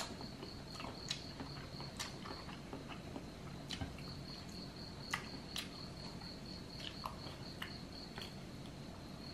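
Soft mouth clicks and smacks of someone chewing crab meat off a fried crab claw, scattered irregularly, over a steady high-pitched pulsing chirp in the background.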